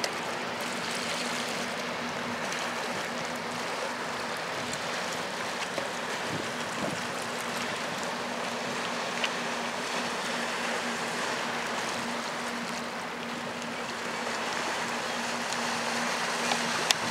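Steady rushing of the fast-flowing river with wind on the microphone, and a steady low hum underneath.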